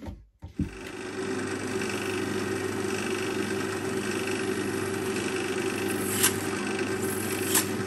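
Benchtop drill press motor starting up just under a second in and running steadily as the bit drills through a clear acrylic sheet, with two sharp clicks near the end.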